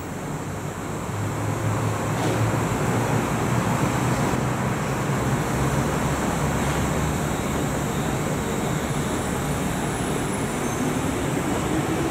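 Electric commuter train running on rails with a steady low rumble. Near the end a motor whine rises in pitch.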